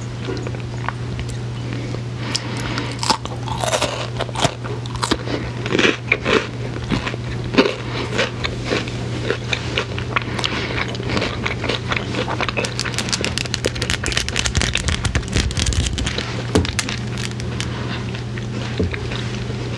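A crisp wafer bar being bitten and chewed right at the microphone: separate loud crunching bites in the first half, then dense, fast crackling chewing later. A steady low hum runs underneath.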